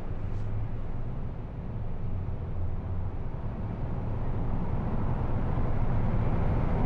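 Steady low vehicle rumble with a faint hum in it, growing louder and brighter over the last few seconds.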